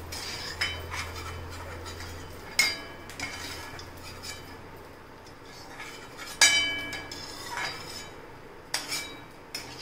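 Perforated steel spoon scraping and clinking against a steel kadhai and a bowl while fried gond is scooped out of ghee. There are several sharp metallic clinks with a brief ring; the loudest comes about six and a half seconds in.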